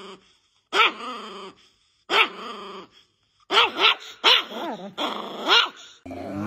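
Small Chihuahua growling and barking in short angry bursts, a few spread out at first and then several in quick succession. Near the end a different, lower sound cuts in.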